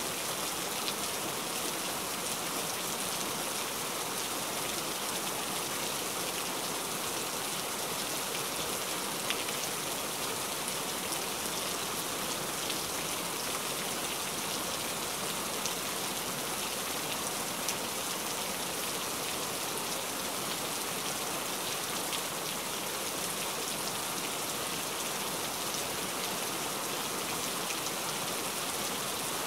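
Heavy rain falling steadily: a dense, even hiss with scattered sharper drop ticks.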